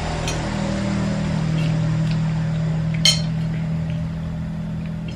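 Spoons clinking on plates during a meal: a few light clinks and one sharper clink about three seconds in, over a steady low hum.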